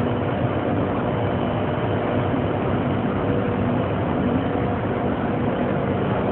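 Alstom Metropolis C751A metro train standing at the platform with its doors open, giving a steady hum and rumble from its on-board equipment.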